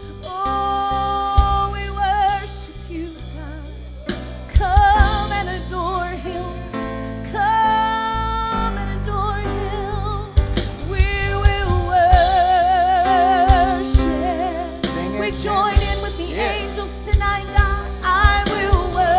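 Live church worship band playing and singing: a lead voice holds long notes with vibrato over keyboard, guitars and bass, with scattered drum hits.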